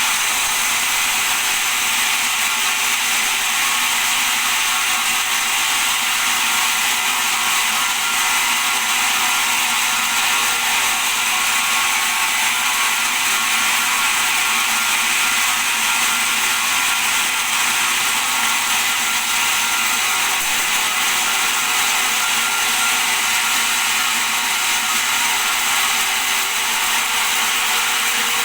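Bandsaw running steadily: an even, unchanging machine whir and hiss with a faint hum underneath.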